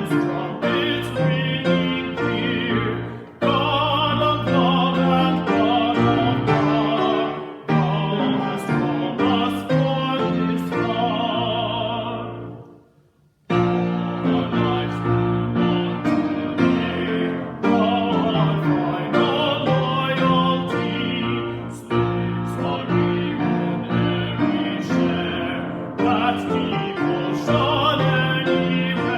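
Music: a voice singing with vibrato over piano accompaniment. It fades out about twelve seconds in and, after about a second's pause, begins again.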